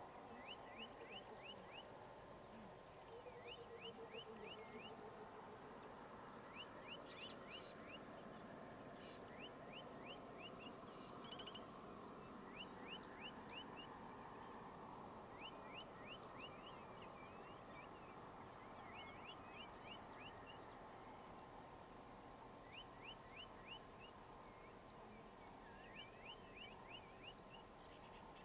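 Faint bird calls: a bird repeats quick runs of four to six short rising notes every couple of seconds over a quiet, steady background hum.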